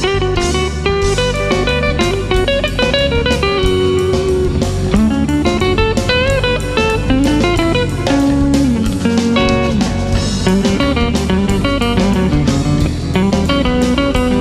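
Instrumental break in a rock song: lead guitar playing a melodic line with bent notes over bass and a steady drum beat.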